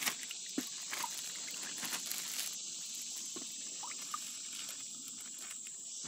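Insects, crickets or similar, keeping up a steady high-pitched chorus. A few light clicks and rustles sound over it.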